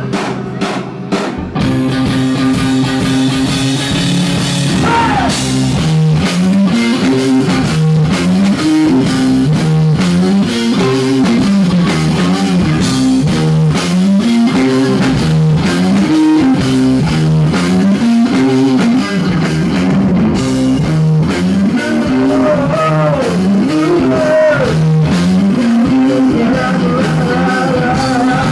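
Live rock band playing electric guitar, bass and drum kit. A low riff repeats about every two seconds, starting about two seconds in.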